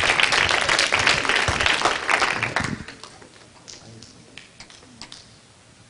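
Audience applause, a dense patter of hand claps that dies away about three seconds in, leaving a few scattered claps.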